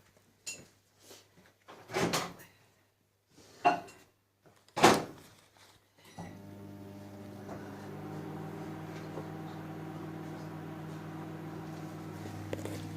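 Washing machine starting its cycle: a few loud clunks, then from about six seconds in a steady hum with a hiss as it begins to draw in water.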